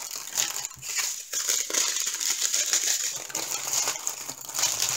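Thin plastic crinkling and rustling as small bags of diamond-painting drills are handled and packed away, a continuous crackle of many tiny clicks.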